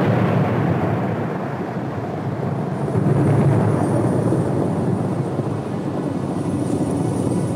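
A rolling thunder rumble sound effect, swelling near the start and again about three seconds in.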